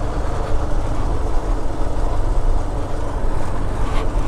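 Motorcycle engine running steadily while riding along a dirt road, mixed with wind and tyre rumble.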